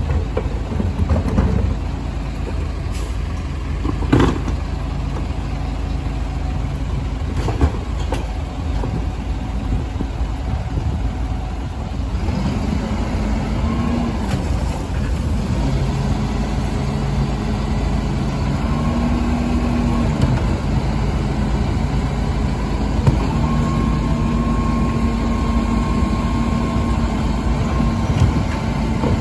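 Rear-loading garbage truck running at the kerb while its rear bin lifter tips wheelie bins, with a couple of sharp clunks early on from plastic bins against the lifter. About halfway through the engine note rises and holds steady as the hydraulics work the lifter and compactor.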